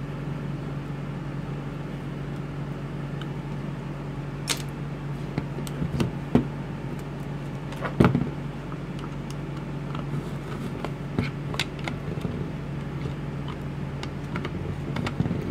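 Scattered clicks and knocks of a screwdriver working the case screws of a DeWalt 20V XR 4.0 Ah lithium-ion battery pack and of the hard plastic packs being handled and set down on a workbench, the loudest knock about eight seconds in. A steady low hum runs underneath throughout.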